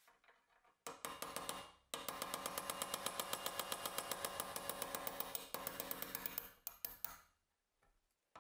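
Rapid light hammer taps on a brass drift punch, about seven a second, driving the front sight of a Colt Lightning's octagonal steel barrel sideways out of its dovetail, the barrel ringing under the blows. The tapping starts about a second in, pauses briefly, then runs on and dies away shortly before the end.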